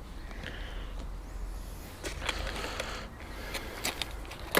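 Scratchy scraping and a few sharp metallic clicks, from a scraper clearing coins and bits of metal off a neodymium recovery magnet; the sharpest click comes near the end.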